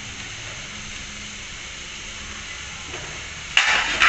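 Steady hiss of masala and shredded cabbage frying in a hot aluminium karahi. Near the end comes a sudden, loud scrape and clatter as a metal spoon starts stirring the cabbage in the pan.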